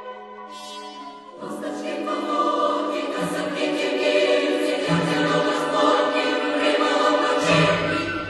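Background choral music with sustained voices, swelling louder about a second and a half in.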